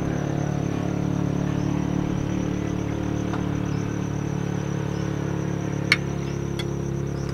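A steady, low motor hum, like an engine idling, with one sharp click about six seconds in.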